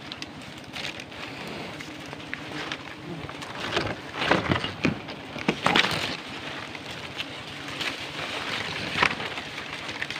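Dry palm fronds and leaves rustling and crackling as they are pushed aside and handled, in irregular bursts that are loudest about four to six seconds in and again near nine seconds.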